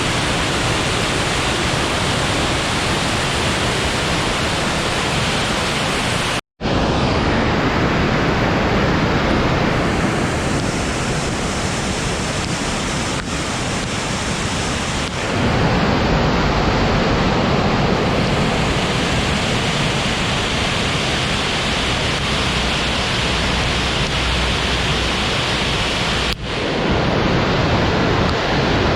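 Steady loud rush of water in the Jasień river, running high after heavy rain. The sound drops out for an instant about six seconds in and shifts slightly in level twice later.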